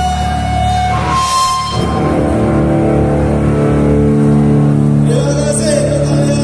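A live rock band playing loud in a large hall, with a chord change about two seconds in. A singing voice comes in about five seconds in.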